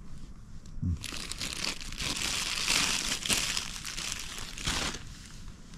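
A food wrapper crinkling as it is handled and opened for breakfast. The crackling starts about a second in, is loudest in the middle and dies away near the end.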